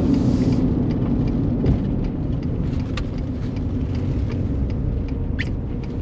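Steady low road and engine rumble inside a vehicle's cab while driving, with scattered faint ticks. A brief rising chirp comes about five seconds in.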